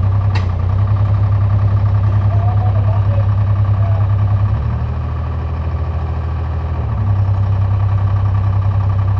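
Diesel engine of a log skidder running steadily under load, its drone dropping in level for about two seconds midway and then coming back up.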